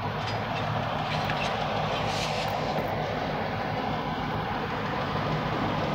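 Diesel locomotive engines running with a steady drone as the locomotives move a train through the yard.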